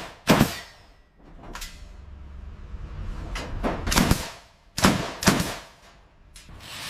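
A run of sharp metallic clangs and knocks, one or two seconds apart, with a low hum and faint hiss between them.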